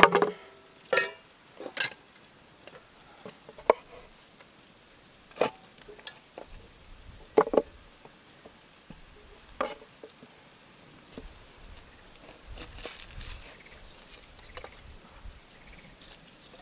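Vegetables being set down one at a time on a wooden cutting board, a few separate knocks a second or two apart, followed later by faint crinkling of dry onion skin being peeled off with a knife.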